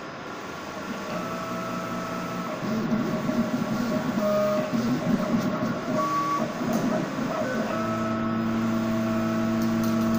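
Cutting plotter at work: its drive motors whine in steady tones that jump to new pitches every second or so as the cutting head and the sheet move. A busier, uneven stretch comes in the middle, and a steady hum sets in near the end.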